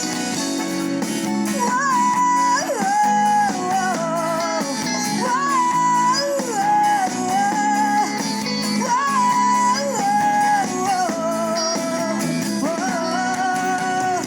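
Music: a break in a sertanejo pop song with no lyrics. A lead melody of long held notes that glide between pitches plays over guitar and band backing.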